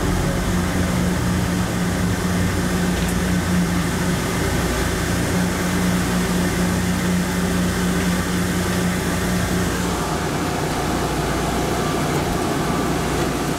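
Automated people-mover train running through a tunnel: a steady rumble with a constant low hum, which drops away about ten seconds in, leaving an even, steady noise.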